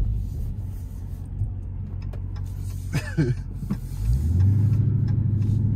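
Car engine in eco mode, heard from inside the cabin, running quietly under light load, then opening up about four seconds in to a louder, steady drone as the car accelerates.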